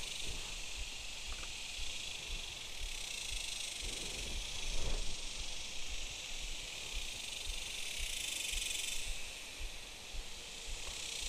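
A steady high-pitched hiss of insects in the trees that swells louder a few times, with light low thumps on the microphone.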